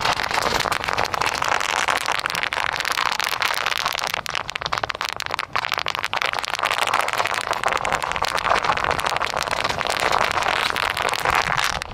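Bubble wrap popping in a rapid, continuous crackle under a pickup truck's all-terrain tire as it rolls slowly over several layers of it.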